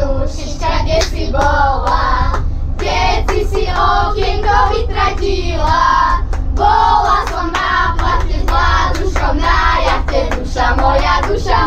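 A group of children and teenagers singing a song together in unison, cheerful and loud, over a steady low rumble.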